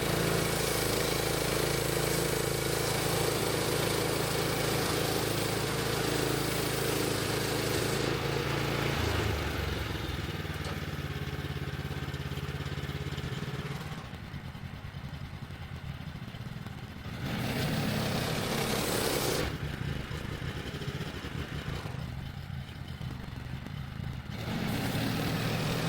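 Woodland Mills HM130 Max band sawmill's gas engine running steadily under a hiss; about eight seconds in the hiss fades and the engine drops to a lower speed, then the sound goes quieter and louder again in stretches.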